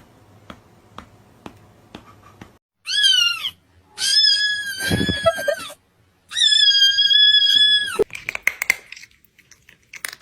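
Cat meowing three times: a short call that falls in pitch, then two long, drawn-out high meows. A patch of rapid crackling follows near the end.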